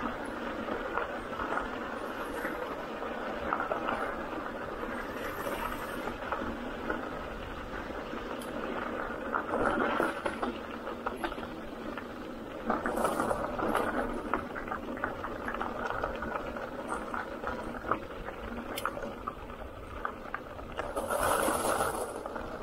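Bicycle rolling over a rough gravel trail: a steady crunching, rattling noise that swells louder several times, at about ten seconds, around thirteen seconds and near the end.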